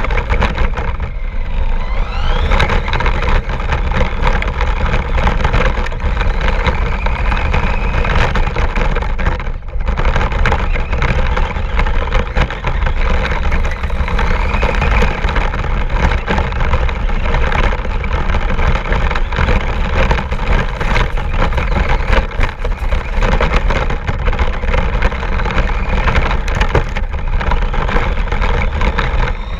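Radio-controlled car driving: a constant loud rattle and rumble with a faint motor whine that rises now and then.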